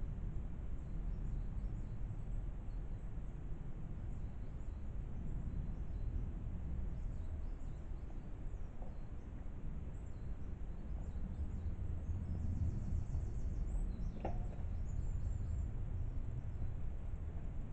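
Outdoor woodland background noise: a steady low rumble, with a brief high trill about twelve and a half seconds in and a single sharp click about fourteen seconds in.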